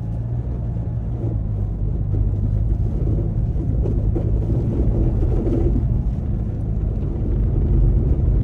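Car driving on a snowy road, heard from the dashboard: a steady low rumble of engine and tyres, swelling slightly in the middle.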